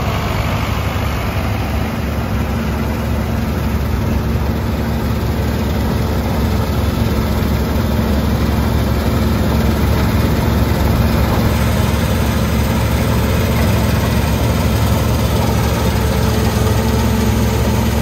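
New Holland TX32 combine harvester running while cutting spring wheat: a steady low engine drone that grows a little louder about halfway through.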